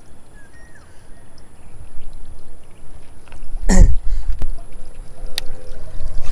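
Wind rumbling on a chest-mounted action camera. There is a loud brief swish with a falling pitch near the middle, then a sharp click about three-quarters through as the baitcasting reel is readied for a cast.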